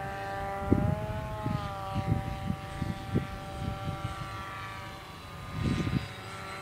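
Brushless electric motor and propeller of a large radio-controlled foam flying wing whining steadily in flight, its pitch shifting slightly about a second in. Gusts of wind buffet the microphone.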